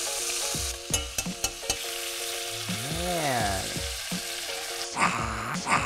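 Bison steaks sizzling in butter and oil in a hot cast-iron pan, with a metal spoon and tongs clicking against the pan a few times about a second in. The sizzle flares up twice near the end as the steaks are moved.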